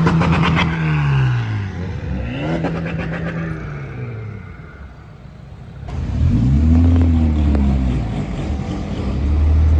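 Car engines being revved hard by drivers passing along a promenade. The engine note climbs and falls back twice in quick blips. About six seconds in, a louder engine note rises again and then holds steady.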